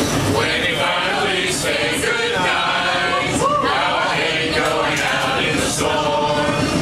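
A group of streetcar passengers singing a Christmas carol together.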